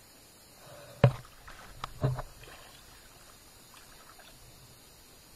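Two sharp thuds about a second apart, with a few lighter knocks and faint splashing of water.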